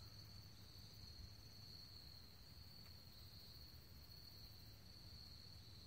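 Near silence, with a faint steady high-pitched insect drone, crickets or similar, carrying on throughout.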